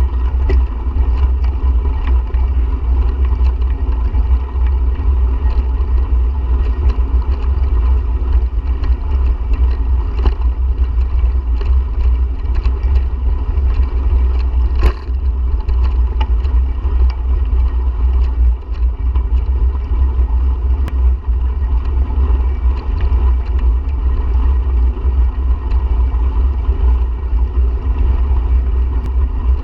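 Wind buffeting the microphone of a camera riding along on a bicycle: a steady low rumble with faint scattered clicks and rattles.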